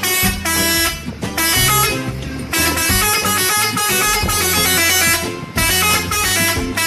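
Telolet multi-tone horn playing a quick melody of short notes, with a brief break about a second in.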